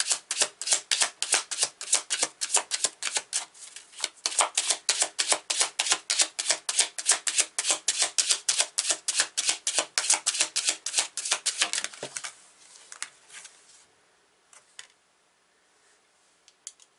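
A deck of tarot cards being shuffled by hand: a rapid, even run of card clicks, about five or six a second. The shuffling stops about twelve seconds in, and a few soft handling sounds follow.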